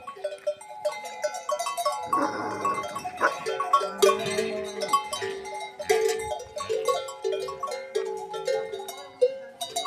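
Bell-like ringing tones at shifting pitches, one after another in an even, melody-like run. A short animal call, like a calf's bleat, sounds a little after two seconds in.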